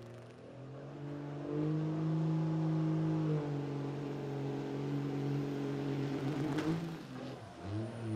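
Pulling truck's engine revving hard: the pitch climbs about a second and a half in and holds high, eases slightly a couple of seconds later, then drops and revs up again near the end.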